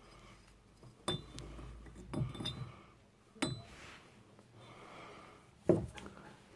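Metal parts of a dismantled Land Rover Discovery 2 ACE hydraulic pump clinking and knocking as they are handled: four separate knocks, some with a short metallic ring.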